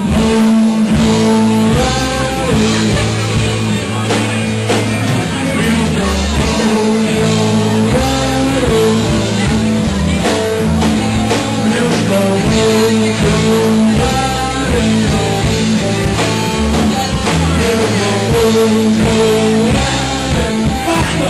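Live rock band playing loudly: a singer over electric guitar, bass and drums.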